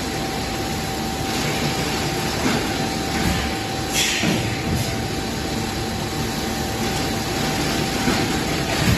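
Plastic cup thermoforming machine running steadily, with a constant mechanical hum, a faint steady whine, and short sharp hisses every few seconds. The clearest hisses come about four seconds in and near the end.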